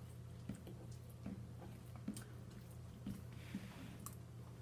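Faint chewing with soft, wet mouth clicks, roughly one a second, over a steady low hum.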